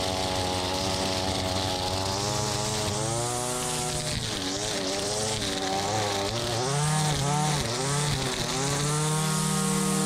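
Gas-powered string trimmer engine running at high revs while cutting thick grass and weeds. Its pitch dips and recovers several times in the middle as the spinning line meets the growth, then holds high and steady near the end.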